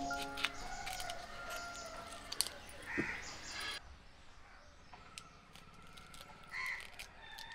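Kitchen knife clicking and scraping as the skins are pared off boiled white yams and air potatoes, a few short sharp taps among softer scraping. Faint bird calls sound in the background.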